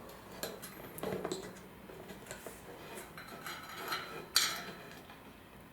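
Scattered light metallic clinks and clicks of screws and steel frame parts being handled during furniture assembly, with one sharper knock a little past four seconds in.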